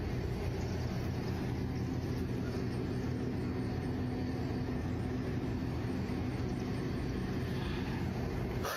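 Steady low rumble of outdoor background noise with a faint hiss above it, unchanging throughout, and a short sharp click at the very end.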